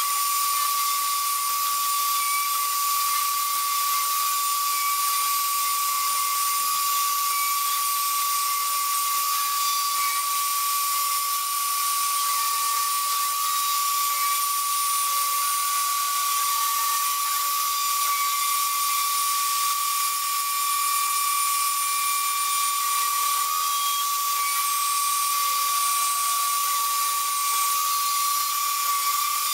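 Mafell FM 1000 router spindle on a CNC gantry router, running at about 20,000 rpm with a steady high whine over a dense hiss. Its 2 mm diamond-cut end mill is cutting through 2 mm FR4 fiberglass board at full depth in a single pass.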